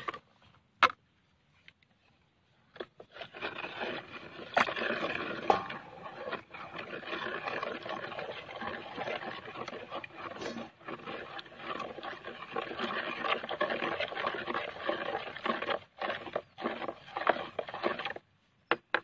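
A wooden stick stirring fertilizer solution in a plastic bucket: continuous sloshing with the stick scraping and knocking against the bucket. It starts about three seconds in and stops shortly before the end, after a single knock near the start.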